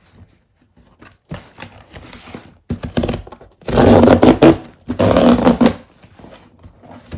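A delivered parcel being opened by hand: packaging rustles and tears, with two long, loud tearing or ripping bursts about four and five seconds in, amid smaller handling clicks.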